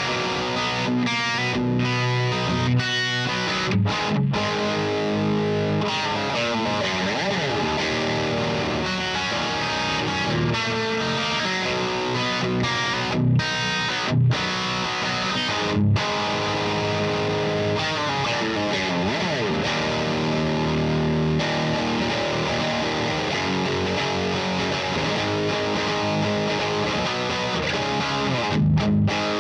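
Electric guitar with P90 pickups played through an All Pedal Slamurai overdrive into a Satellite Neutron EL84 tube amp, miked in an isolation cabinet: continuous overdriven playing with some sliding notes and a few brief gaps. The tone is a little dark, which the player puts down to the nature of the amp.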